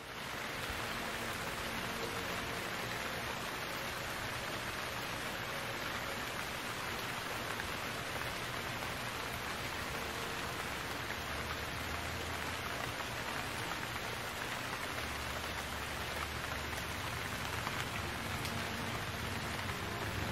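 Steady rain falling on wet pavement, an even hiss, with a low rumble coming in twice in the second half.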